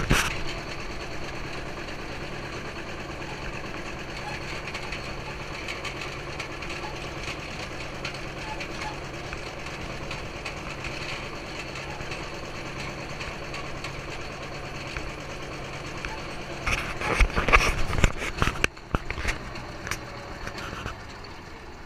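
Farm tractor engine running steadily while pulling a hay wagon. About three-quarters of the way through there is a louder, irregular burst lasting a couple of seconds, then the steady running goes on more quietly.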